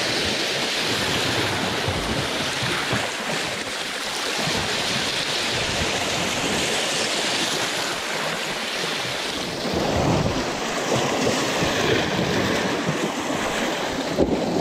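Sea water washing and sloshing against the rocks at the water's edge, with wind buffeting the microphone. The wash grows heavier about ten seconds in.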